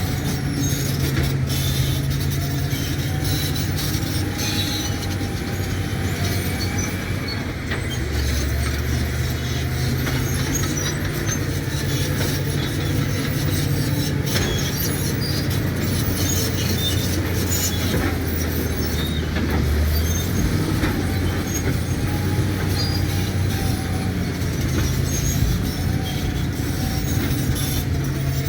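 Caterpillar D7 bulldozer's diesel engine running hard, with its steel tracks clanking and squealing. The engine note deepens for about twelve seconds in the middle.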